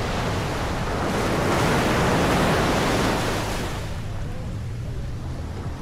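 Ocean surf on a beach: a wave breaks and washes up, swelling about a second in and fading again after about four seconds.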